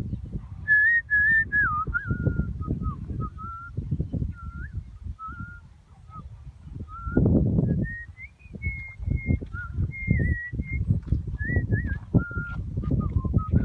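A run of clear whistled notes, each short and bending up or down, in loose phrases throughout, over an irregular low rumbling noise that swells about seven seconds in.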